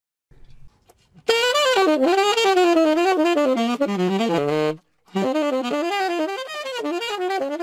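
Saxophone played in fast jazz runs. It starts about a second in, and the first phrase steps down to a held low note. After a brief pause about five seconds in, a second quick phrase follows.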